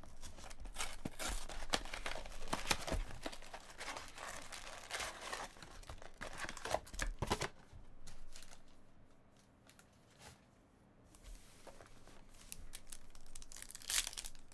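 Trading card pack wrappers torn open and crinkled, with cards rustling as they are handled. The crackling is busiest in the first half, thins out for a few seconds past the middle, then picks up again near the end.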